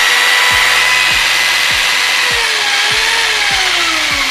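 Kangaro 2-20 rotary hammer drill running in plain rotary mode, hammer action off, with its motor whining steadily at full speed. Over the last couple of seconds the pitch falls as the motor slows.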